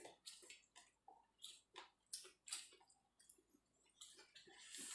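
Faint sounds of people eating by hand: chewing, with lip smacks heard as a string of short, soft clicks. A longer hiss of noise rises near the end.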